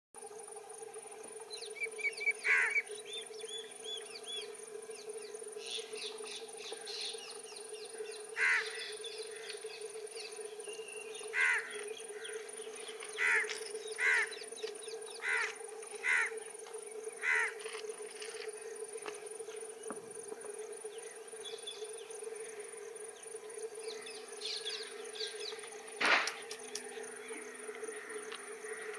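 Outdoor ambience of insects droning and chirring steadily, with a bird giving short, loud calls every few seconds; the strongest call comes near the end.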